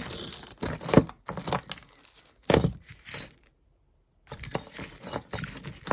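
Loose small metal parts and hardware clinking and rattling as they are handled and sorted by hand, in several bursts with a short pause a little past the middle.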